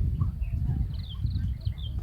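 A few short, high bird chirps, about a second in and again near the end, over a loud, uneven low rumble.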